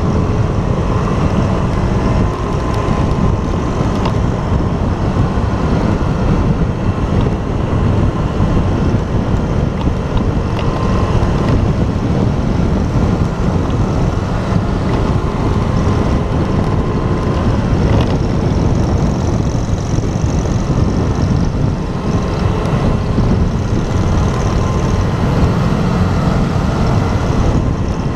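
Motorcycle on the move: engine running steadily under heavy wind rush on the camera microphone.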